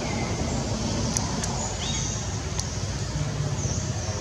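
Steady outdoor background rumble and hiss, like wind or distant traffic, with a few faint short high chirps and light clicks over it.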